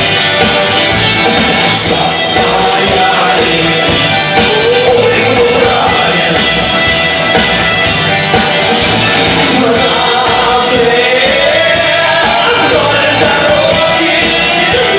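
A song with full band accompaniment and a singing voice, loud and continuous. A drawn-out melodic line glides about five seconds in and again in the last few seconds.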